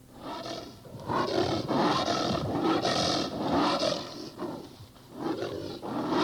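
Recorded animal roar sound effect: a run of harsh, repeated roars, several in a row, starting about a second in.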